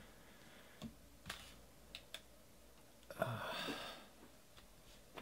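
Baseball trading cards being handled and flipped through by hand: a few soft clicks of card edges, then a louder scuff lasting under a second about three seconds in as the stack is put down.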